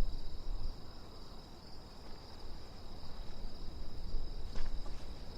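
Crickets chirring steadily in a continuous high-pitched drone, over a low rumble of outdoor night ambience, with a few faint clicks near the end.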